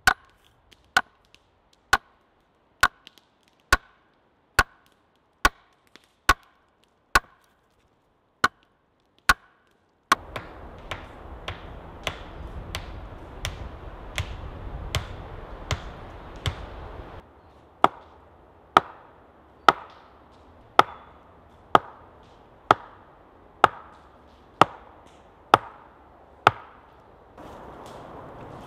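A hammer driving a wooden fence post into the ground, striking its top in a steady rhythm of about one blow a second.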